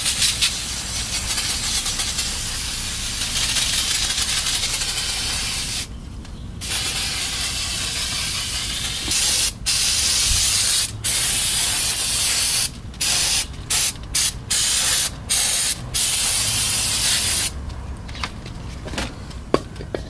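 Aerosol can of brake cleaner hissing as it is sprayed onto a brake caliper: long sprays with a brief break, then a string of short bursts, stopping a couple of seconds before the end.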